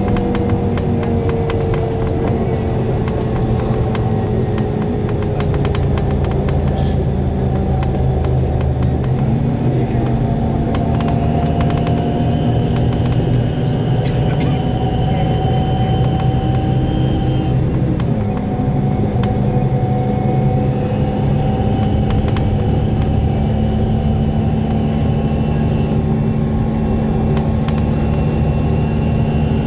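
Bus engine running under way, a loud, steady drone with a thin high whine over it. The engine note steps up about nine seconds in and drops again about eighteen seconds in.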